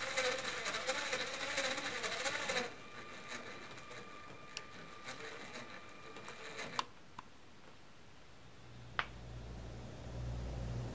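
Small electric motor in a Lego model whirring with a slightly wavering pitch as it lifts the vent hood off the top of the external tank. The motor stops about three seconds in, leaving a fainter whine and a few light clicks, and a low rumble comes up near the end.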